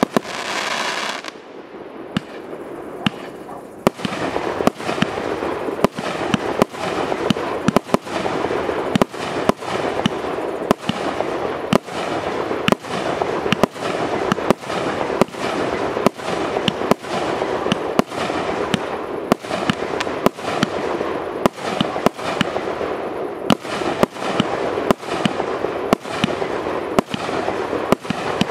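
TKB880 "Gargara" consumer firework cake (1-inch and 0.8-inch calibre, 293 shots) firing: a steady series of sharp shell bangs, about two a second, with a dense crackle between them. A short lull comes about two seconds in before the shots pick up again.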